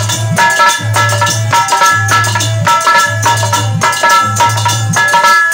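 Harmonium playing a melody of held, stepping notes in an instrumental passage of a devotional bhajan, over steady rhythmic percussion with a repeating low beat.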